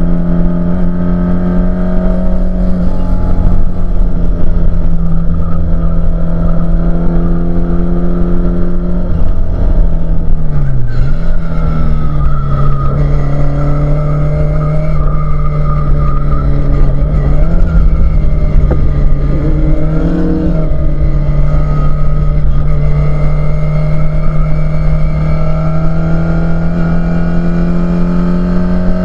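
Mk2 Ford Escort RS2000 race car engine heard from inside the cockpit, running hard at high revs. The note drops sharply about eleven seconds in and runs lower through the middle, with a couple of brief blips, then climbs again near the end.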